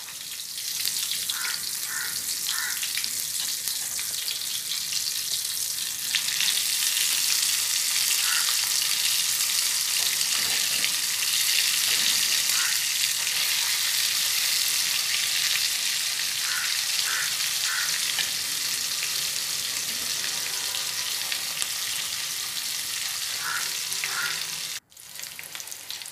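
Spice-coated chicken pieces frying in hot oil in a pan: a steady sizzle that grows louder about six seconds in, with a few faint short clicks. The sizzle breaks off for a moment near the end.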